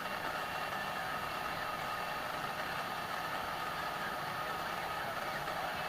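A dense, steady wash of layered noise with a faint low hum beneath it, like an idling engine heard through a hiss, holding even without breaks or changes.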